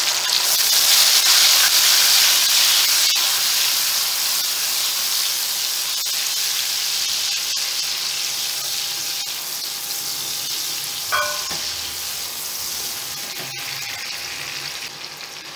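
Chopped tomatoes sizzling in hot oil with garlic paste and cumin seeds, stirred with a silicone spatula. The sizzle is loudest at first, just after the tomatoes go in, and slowly dies down, with scattered clicks of the spatula against the pot.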